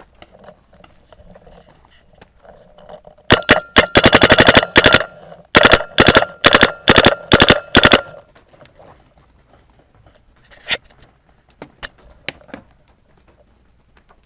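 Paintball marker firing close by: a rapid burst of shots lasting nearly two seconds, then a quicker-paced string of about nine single shots, roughly four a second. A few fainter pops of other markers follow later.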